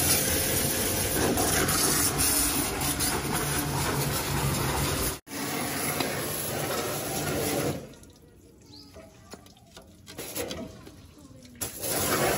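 Pressure washer jet spraying water onto a mud-caked tractor underside, a dense hissing splash. It breaks off for an instant about five seconds in, stops for several seconds from about eight seconds in, and comes back briefly near the end.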